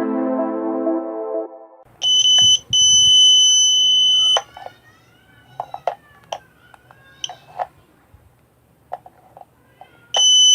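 Background music fades out, then a piezo buzzer alarm sounds a shrill steady beep: two short beeps, then one held for almost two seconds. Quiet clicks and knocks follow, and near the end the beep sounds again.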